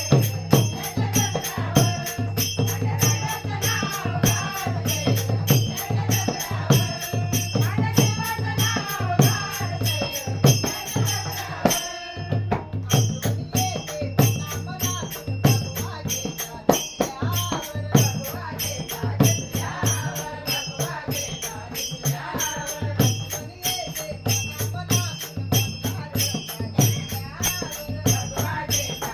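Music from a Marathi devotional song, with a steady rattling percussion beat under a melody line. The music drops out briefly about twelve seconds in.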